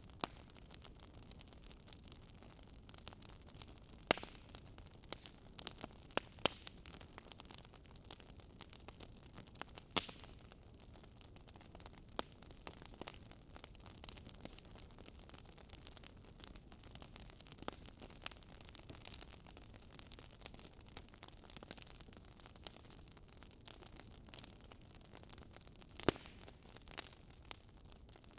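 Wood fire crackling in a fireplace: irregular sharp snaps and pops over a faint steady hiss, with a few louder pops now and then.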